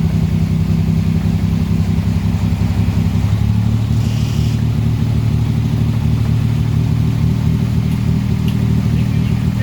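1938 SS Jaguar 3½ Litre's straight-six engine running steadily, its pitch shifting slightly about three seconds in.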